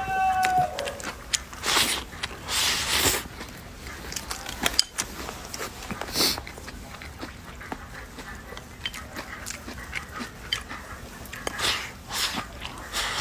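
A rooster's crow ends in the first second. After it come short breathy, noisy sounds every few seconds.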